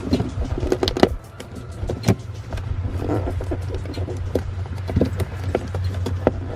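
Hand work inside a car's trunk: scattered clicks and knocks of parts and trim being handled, over a steady low hum.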